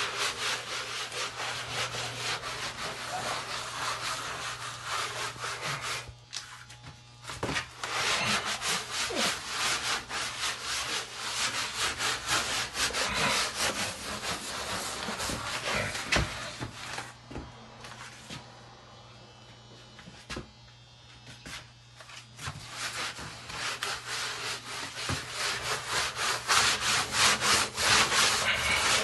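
Hand scrubbing of a greasy wall being cleaned with grease remover before painting: fast back-and-forth rubbing strokes that break off briefly about six seconds in and again for a few seconds in the middle, then pick up faster. A low steady hum runs underneath.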